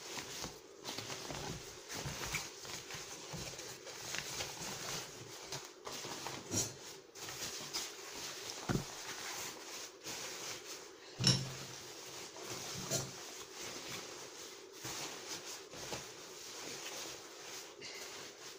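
Irregular rustling of a nylon jacket being handled, with scattered clicks and a few short knocks from hands and camera handling.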